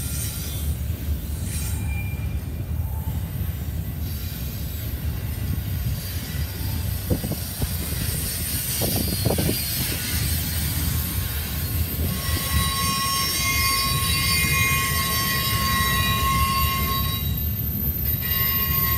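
Double-stack container freight train rolling past with a steady low rumble of wheels on rail. About two-thirds of the way through, the wheels start squealing in high steady tones, which break off briefly near the end and then return.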